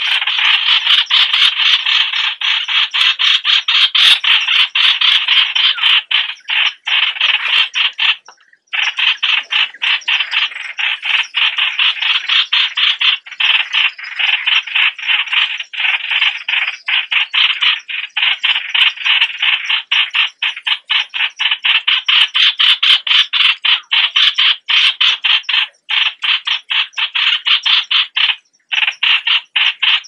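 Yellow-vented bulbuls calling: a dense, continuous stream of short rapid notes, several a second, with a few brief breaks, played as a lure call to draw in wild bulbuls.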